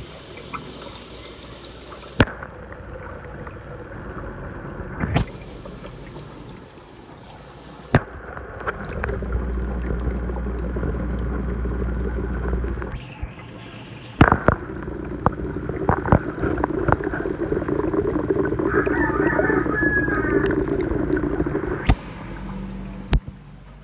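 Water bubbling and trickling in a planted fish tank, with a steady low hum and stretches of low rumble. Several sharp clicks fall where the recording jumps from one clip to the next.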